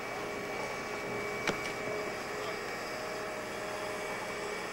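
Excavator's engine running steadily, a constant mechanical hum with a single sharp click about one and a half seconds in.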